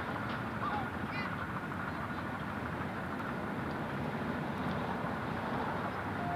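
Steady outdoor background noise, an even dull hiss with no clear single event.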